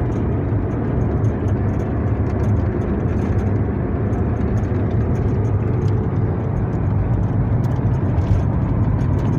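A car driving at steady speed: an even, low engine and road-noise rumble.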